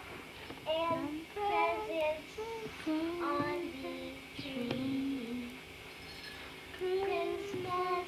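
A young girl singing unaccompanied from a songbook, holding long notes that step up and down between short breaths.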